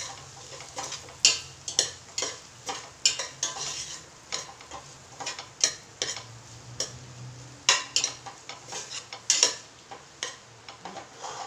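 Vegetables being stirred in a metal pot as they sauté: a utensil scraping and knocking against the pot in irregular strokes, about one or two a second, over a light sizzle.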